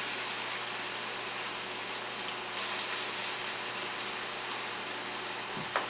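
Chopped red onions sizzling steadily in about a cup of hot oil in a stainless steel sauté pan, with a single short knock near the end.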